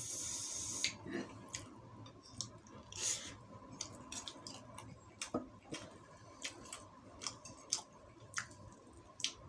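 Metal spoon and fork tapping and scraping on a plate of food in short, irregular clicks, with eating sounds and a brief rustle near the start and again about three seconds in.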